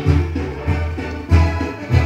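Music playing with a steady, strong bass beat, about three beats every two seconds.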